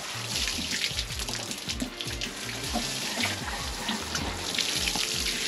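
Water pouring steadily onto soil and young tomato plants as they are watered in after planting. Background music plays underneath.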